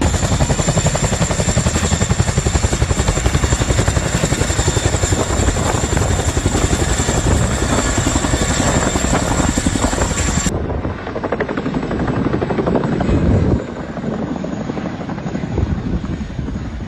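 Helicopter rotor chopping with a fast, even beat over a steady high turbine whine. About ten seconds in the sound changes abruptly: the whine drops out and the chopping carries on, somewhat quieter.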